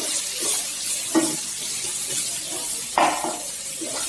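Sliced onions and green chillies sizzling in hot coconut oil in a frying pan, with a spatula stirring and scraping against the pan every couple of seconds.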